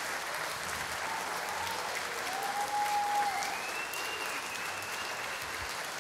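Theatre audience applauding, a dense steady clatter of many hands clapping.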